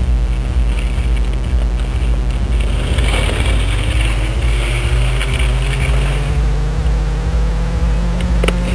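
Wind rumbling on a helmet-mounted action camera's microphone as a skier glides slowly over packed snow, with the hiss of skis sliding on the snow for a few seconds in the middle.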